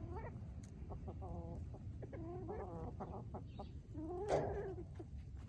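Hens clucking: a series of short, pitched, drawn-out calls, the loudest about four seconds in.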